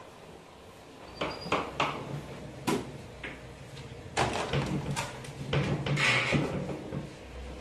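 Heavy lumps of porotta dough slapping and knocking onto a stainless-steel worktable and a large metal tray during kneading, a run of about eight irregular knocks that come thickest in the second half.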